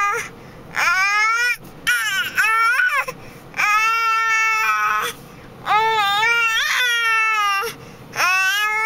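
A baby crying loudly in repeated long wails, each about a second, with short breaths between them.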